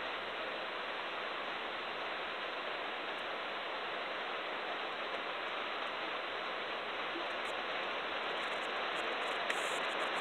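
Steady rain, an even hiss, with a few faint clicks as small plastic connectors are handled.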